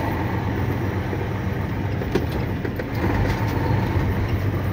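Medium-duty truck driving on a rough dirt track, heard from inside the cab: a steady low engine drone, with a few brief knocks and rattles over the bumps.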